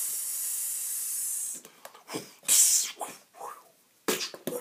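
Mouth-made fight sound effects: a long hissing whoosh lasting about a second and a half, then shorter hissing bursts and a few sharp clicks.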